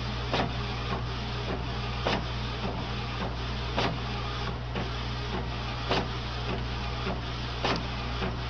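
Inkjet printer running, its print head carriage shuttling back and forth with a steady whirring. A sharp click comes about every two seconds.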